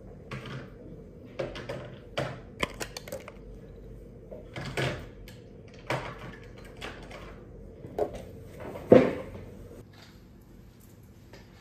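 Irregular knocks and clatters of things being handled and set down at a desk, about a dozen in all, the loudest about nine seconds in.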